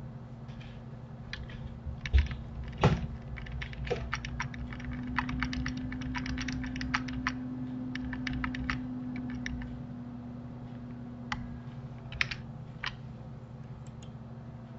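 Computer keyboard keys clacking, with Ctrl+Z pressed many times in quick succession to undo steps and then a save shortcut. Two louder knocks come about two and three seconds in, over a steady low hum.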